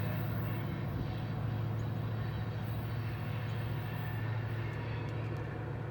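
Diesel locomotives of a heavy loaded freight train working hard up a steep grade, a steady low drone.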